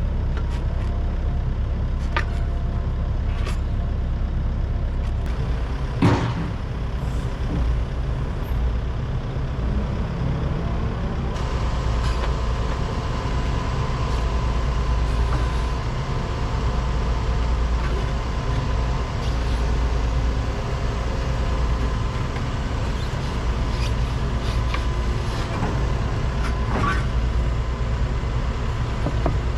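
Volvo excavator's diesel engine running steadily, with a sharp metallic knock about six seconds in and scattered clanks. A steady whine joins about a third of the way through.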